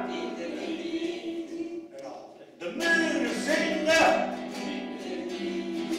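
A man singing to his own nylon-string classical guitar. A chord rings on for the first two seconds, there is a short pause, and then singing and strumming start again.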